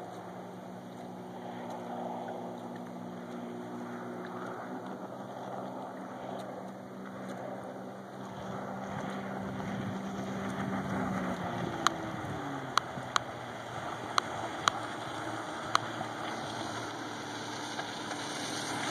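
2005 Sea-Doo RXT jet ski's supercharged three-cylinder four-stroke engine running at speed, a steady drone with water noise that grows louder as the craft comes closer; about twelve seconds in its pitch falls. Several sharp clicks in the second half.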